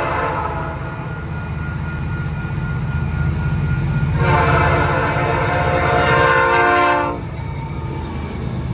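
Locomotive air horn on CN SD70I 5624 sounding a chord: one blast dies away just after the start, then a second blast of about three seconds begins about four seconds in. Underneath runs the steady low rumble of the diesel locomotives.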